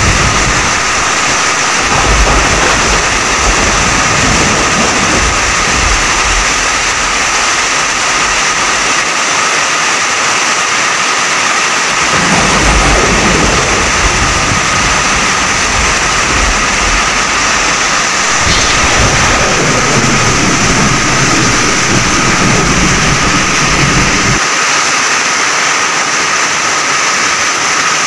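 Heavy downpour in a rainstorm: a loud, dense, steady hiss of rain. Deep rumbling from the storm comes in stretches, from about two seconds in to nine, and again from about twelve to twenty-four seconds, where it stops abruptly.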